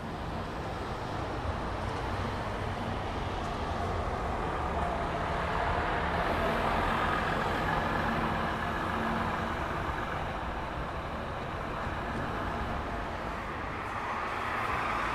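A road vehicle passing on a city street, its sound building to a peak about halfway and easing off, with the next starting to rise near the end.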